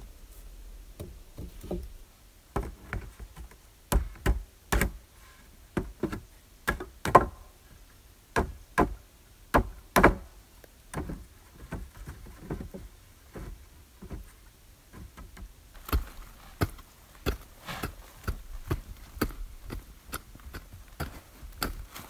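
A run of irregular knocks and taps, one to three a second, the loudest coming between about four and ten seconds in.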